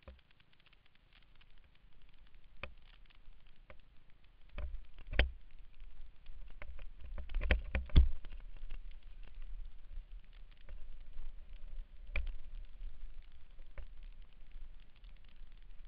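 Mountain bike rolling fast down a trail thick with dry leaves: tyres crackling through the leaves and the bike rattling over roots and bumps, with heavy knocks about five, eight and twelve seconds in.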